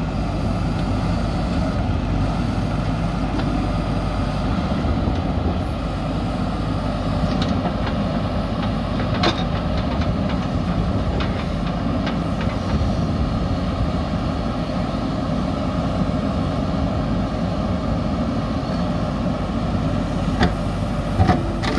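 Diesel engine of a JCB 3DX backhoe loader running steadily, with a few short knocks and clicks in the middle and near the end.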